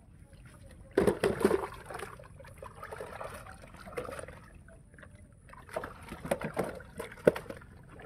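A caught fish thrashing in a plastic tub of water: splashing and sloshing with knocks against the tub, in a sharp burst about a second in and a second spell near the end.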